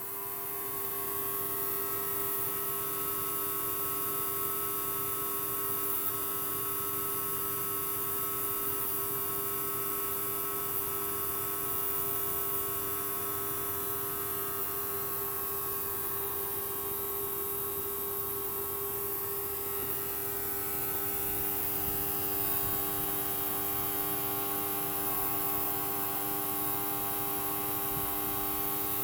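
Steady electrical hum made of several unchanging tones, with a steady high hiss above them.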